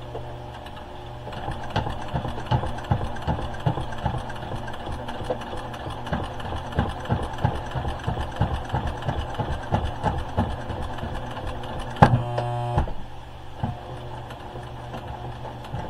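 Electric sewing machine stitching slowly through thick bunched terry towel and fabric: a steady motor hum with irregular needle strokes. The machine is struggling with the bulk even with a walking foot fitted. About twelve seconds in there is a sharp click and a brief buzzing tone.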